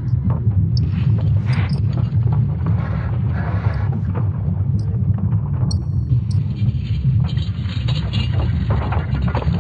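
Sonified recording presented as the sound of Earth's magnetic field: a deep, continuous rumble with irregular scraping and crackling over it and a few brief high tones.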